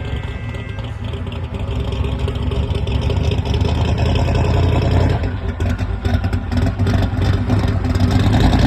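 A car engine running and pulling, building in loudness over the first few seconds, easing off about five seconds in, then building again.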